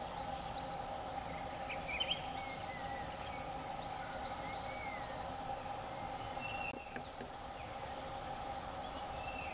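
Forest ambience: a steady insect drone with scattered short bird chirps and whistles, most of them in the first half.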